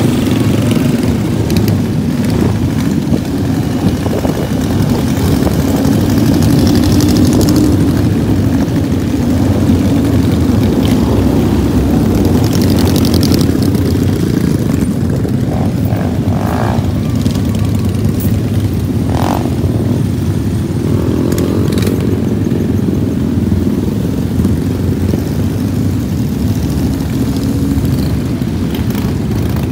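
A long convoy of motorcycles, big cruiser motorcycles among small scooters, riding slowly past in a continuous mass of engine noise. Single bikes' engine notes rise as they rev past, one clearly about three-quarters of the way through.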